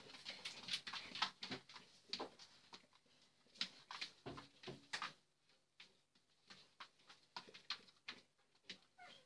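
A dog moving about on a hard floor: scattered, faint clicks and taps of its claws and feet, denser in the first few seconds and sparser later.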